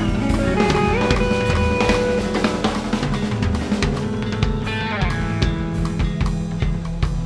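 Background music: a rock-style track with a full drum kit (kick, snare, rimshots) playing a steady beat under sustained guitar and bass notes.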